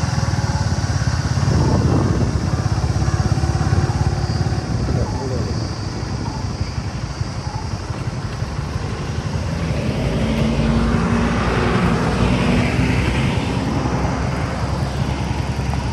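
Motorcycle engine running steadily while riding along a road. Around ten seconds in, a steady hum and extra hiss join the engine noise for a few seconds.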